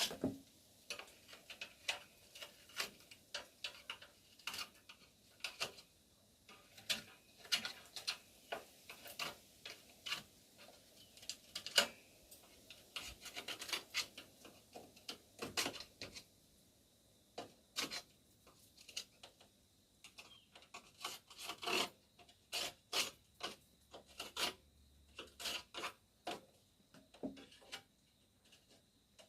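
Screwdriver scraping and poking in the channels along the edges of a screen door, digging out packed insect nests: irregular short scrapes and clicks.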